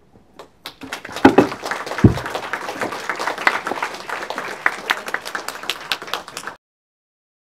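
Audience applauding at the end of a talk: dense clapping that builds about a second in and cuts off abruptly near the end, with a low thump about two seconds in.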